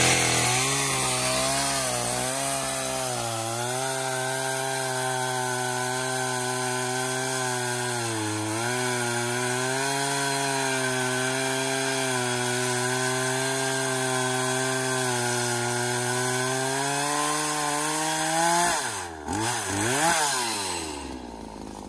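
Troy-Bilt chainsaw with an 18-inch bar cutting through a fallen pine log, the engine holding a steady pitch under load and dipping briefly twice as the chain bites in. Near the end it comes out of the cut and revs up and down before dropping back.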